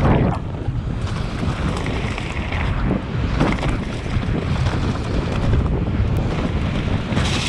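Wind rushing over the microphone as a hardtail mountain bike descends a dirt trail at speed, with the tyres rolling over loose dirt and the bike rattling over bumps; a sharper knock comes right at the start and another about three and a half seconds in.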